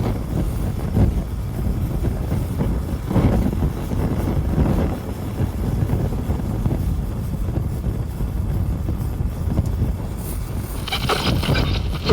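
Honda Ridgeline driving on a stormy winter road: a steady, surging low rumble of tyres and wind. About 11 seconds in, a brighter, higher sound joins.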